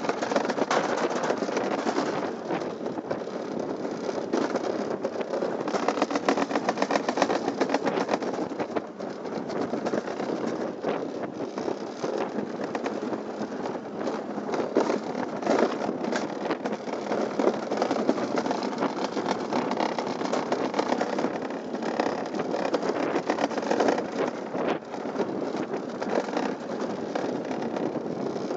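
Summer toboggan sled running down a stainless-steel trough track: a continuous rolling rumble with a fine rattle, swelling and easing as the sled takes the bends.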